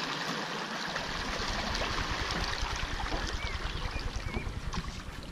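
Water rushing and splashing past a rowing shell as the oar blades pull through it, with a deeper low rumble coming in about a second in.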